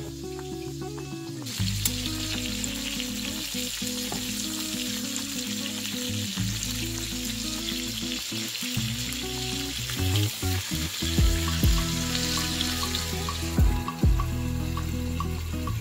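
Scored chicken breasts frying in butter and olive oil in a pan: a steady sizzle that comes in about a second and a half in and drops away near the end. A few low thumps sound in the last few seconds, under light background music.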